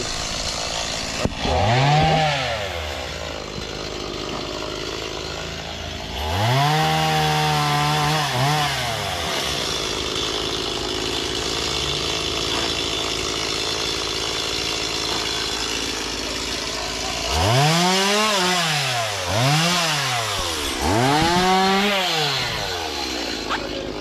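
Gas chainsaw cutting through breadfruit tree branches: the engine idles between cuts and revs up and back down five times, with a longer rev about six seconds in and three quick ones in a row near the end.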